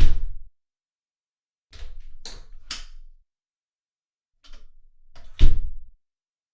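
Hard knocks and clunks: a heavy thump at the start, a cluster of lighter clatters about two to three seconds in, and another heavy thump about five and a half seconds in.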